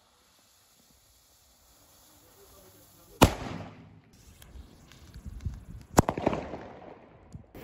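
Two Weco cube-shaped salute firecrackers (Kubische Kanonenschläge, 4.5 g of flash composition each) exploding. Each gives one sharp, loud bang that echoes briefly; the first comes about three seconds in and the second about three seconds later.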